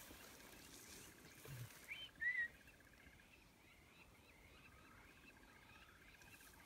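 Near-quiet bush with scattered faint bird calls. The loudest is a short whistled chirp a little over two seconds in. A faint rapid trill drops out after about three seconds and comes back near the end.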